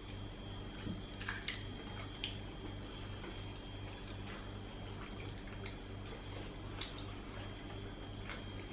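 Eating sounds: wet chewing of barbecued meat with scattered light clicks of a fork and knife on a plate, over a low steady hum.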